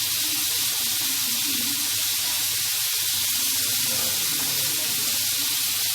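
Steady sizzling hiss of kofta cooking on a grill.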